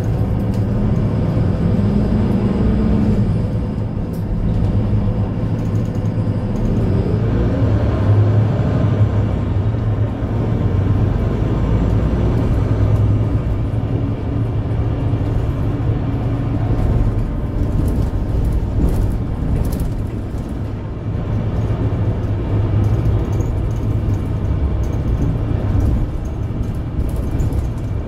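A 2022 Mercedes-Benz Citaro C2 Ü Hybrid city bus running steadily, heard from inside the passenger cabin: a deep drivetrain hum, with a rising whine about seven seconds in.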